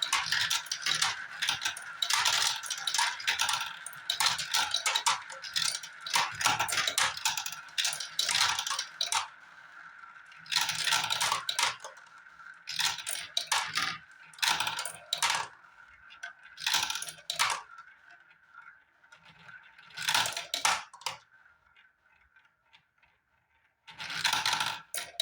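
Marbles rolling and clattering down a marble run, hard clicks and rattles of marble against track. A dense stream of clicks for about the first nine seconds, then separate bursts of clatter that thin out toward the end.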